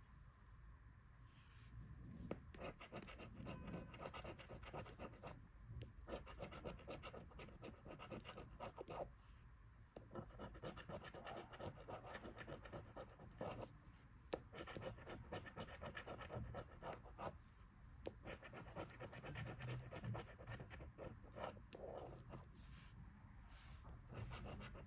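A coin scraping the coating off a paper scratch card in quick, faint strokes. It starts about two seconds in and comes in runs with short pauses.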